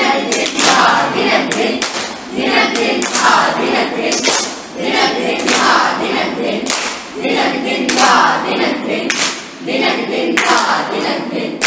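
A group of voices singing over rhythmic handclaps that keep the beat.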